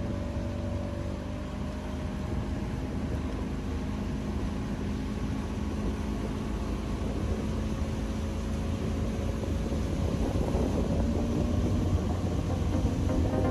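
Bass boat's outboard motor running with a steady rush of noise, growing louder over the last few seconds.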